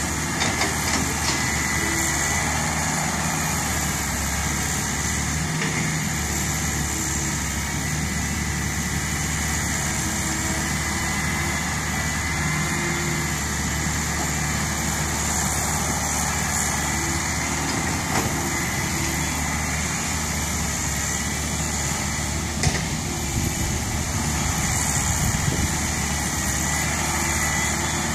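Diesel engine of a Komatsu hydraulic excavator running steadily under load as it digs soil and loads a dump truck, with the truck's engine idling alongside. A few sharp knocks stand out, the clearest about two thirds of the way through.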